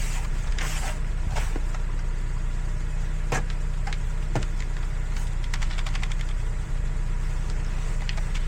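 A car running: a steady low engine rumble with a scattering of short clicks and taps over it.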